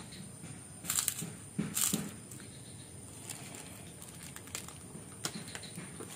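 Crunchy kerupuk cracker being bitten and chewed, with two loud crunches about one and two seconds in. These are followed by fainter crackles and the crinkle of a thin plastic bag being handled.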